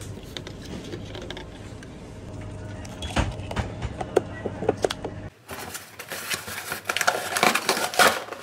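Serving salad at a self-service salad bar: clicks and clacks of tongs, a plastic bowl and lids over a steady low hum. After a cut about five seconds in, a cardboard parcel is torn open, with crackling and crinkling of card and paper.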